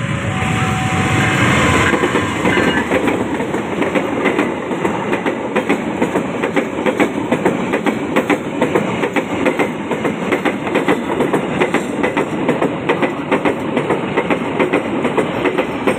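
Argo Parahyangan passenger train passing close by at speed. It swells loud in the first couple of seconds as the head of the train goes by, then the coaches' wheels clatter in a quick, steady rhythm over the rail joints, with a continuous rumble and rush underneath.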